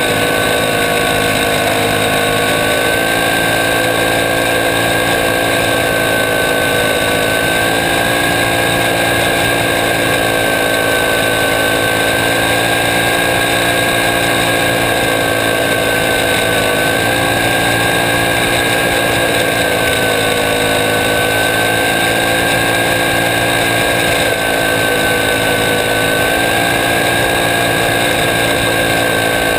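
Onboard sound of a small racing kart's engine running hard at race speed: a loud, steady drone whose pitch dips slightly and climbs back several times through the corners.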